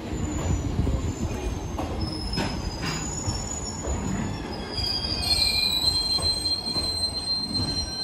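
Koki 104 container wagons of a freight train rolling slowly past, wheels rumbling with a few clicks over rail joints. From about halfway through, a high-pitched metallic squeal from the wheels grows loud.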